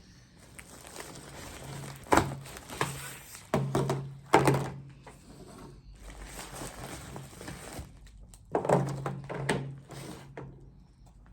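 Several thunks and knocks as old mobile phones are picked up, handled and set down while rummaging through the box they came in.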